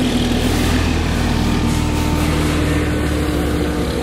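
Pickup truck running at low speed, a steady low engine drone.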